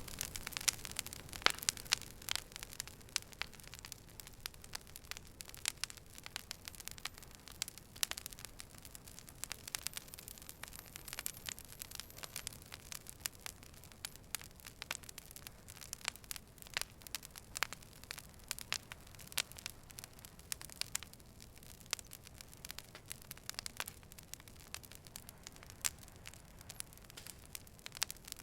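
A fire burning and crackling: frequent irregular sharp pops and snaps over a soft steady hiss.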